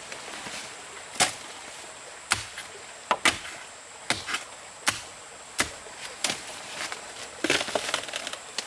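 Chopping with a blade into wood: sharp, irregular strikes roughly once a second, with a quicker flurry of hits near the end.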